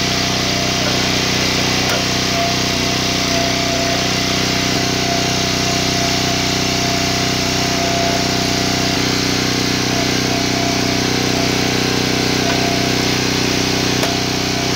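Small gas engine of a 28-ton log splitter running steadily while its hydraulic ram slowly presses down and crushes a laptop, with a sharp snap near the end.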